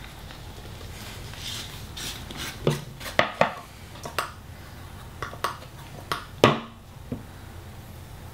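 Scattered light clicks and knocks from a PVC pipe and fittings being handled on a wooden board, and from a metal can of PVC cement being unscrewed and its dauber lid lifted off. The sharpest knock comes about six and a half seconds in.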